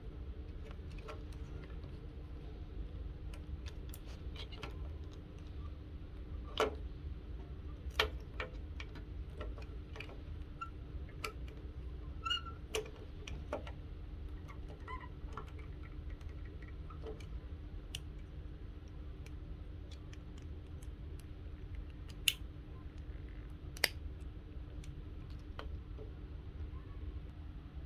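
Irregular sharp clicks and snaps of plastic model kit parts being handled, cut from the runner and pressed together, a few of them louder, over a steady low hum.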